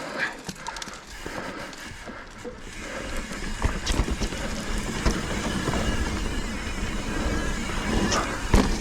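Mountain bike ridden along a rough dirt trail: wind rumble on the helmet-camera microphone and tyre noise, with scattered knocks and rattles from the bike over roots and rocks. It grows louder about three seconds in as the bike picks up speed.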